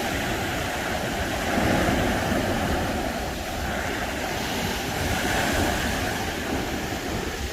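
Sea waves surging and breaking, with two louder surges, and wind rumbling on the microphone.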